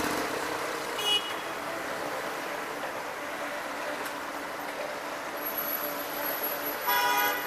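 Traffic at a busy city intersection: cars and scooters passing with a steady road noise, and a vehicle horn honking briefly about a second in and again for about half a second near the end.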